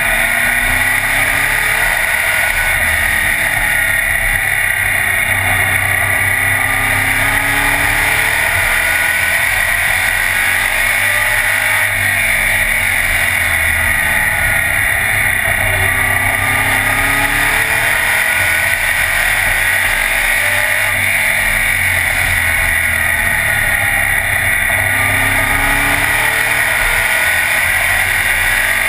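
Race car engine heard from inside the caged cockpit, running hard under way, its note rising and falling every few seconds as the throttle is worked.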